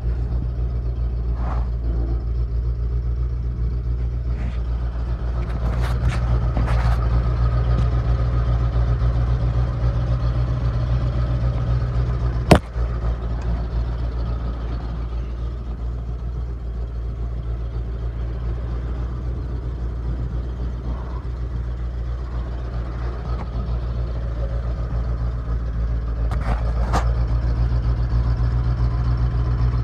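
1979 Ford 4x4 feed truck's engine idling steadily, with a sharp click about twelve seconds in and a few light knocks.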